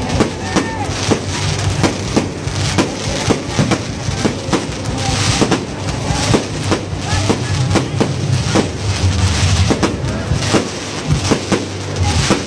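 Fireworks display going off: an irregular string of sharp bangs, a few a second, over a steady hiss and rumble.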